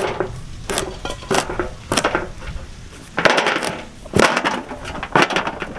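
Chopping: a heavy blade striking a wooden block in irregular strokes, roughly two a second, several of them with a short crunching tail.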